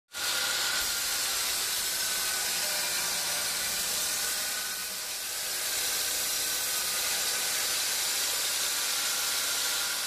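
Band sawmill blade cutting through a knotty teak log: a steady high hiss with a faint whine in it, easing slightly about halfway.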